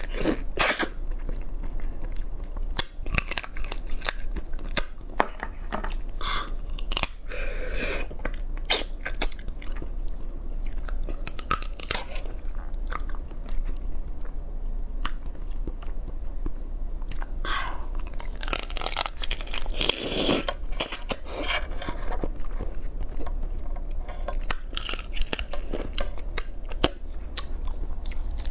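Close-up chewing and crunching of crab: the shell of a crab leg cracks under the teeth, and the body is pulled apart and chewed, with many sharp clicks and cracks throughout.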